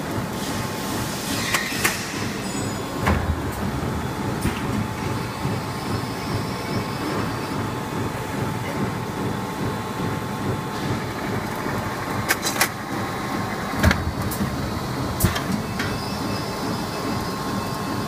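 GÜR-İŞ PS-ROLL 420 plastic bag-making machine running: a steady mechanical hum with a faint whine, broken by a few sharp clicks and knocks.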